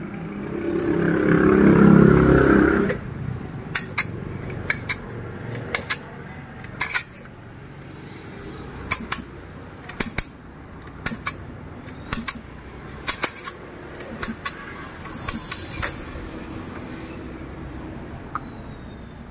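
A loud engine-like rumble swells and fades over the first three seconds. Then come sharp metallic clicks, many in quick pairs about a second apart, as tools and parts are handled at the motorcycle's cylinder head.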